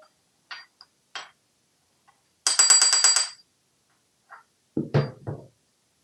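African grey parrot rattling a metal spoon against the countertop: a few single clicks, then a fast run of about ten taps in a second with a high metallic ring, and a few duller knocks near the end.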